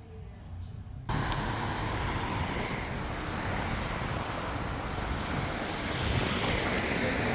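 Steady outdoor rushing noise that starts abruptly about a second in, after a quieter low rumble.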